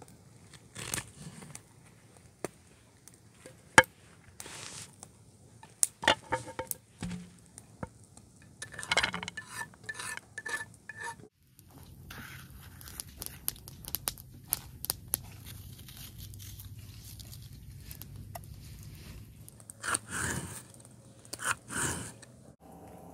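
Handling noises: scraping, rubbing and light knocking, with several sharp clicks in the first half. About halfway a steady low hum comes in beneath more scrapes and knocks.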